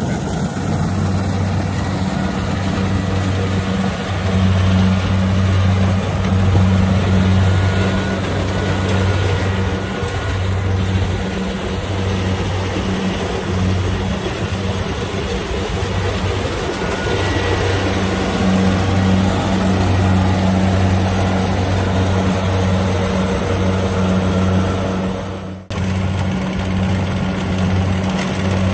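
Kubota DC-70 rice combine harvester's diesel engine running steadily with a deep hum, close by. The sound cuts out for an instant near the end, then the engine carries on.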